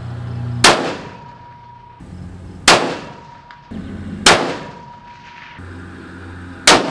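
Four shots from a scoped 7mm bolt-action hunting rifle, about two seconds apart, each a sharp crack with a short fading echo. A thin, steady high tone hangs after each shot.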